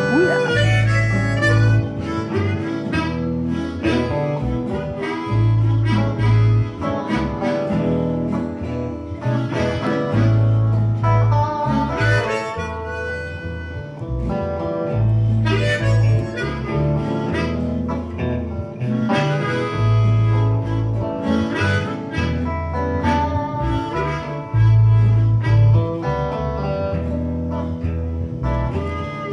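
Live instrumental break of a small band: a sustained lead line with bending notes over guitar and keyboard, with a bass riff that repeats every few seconds.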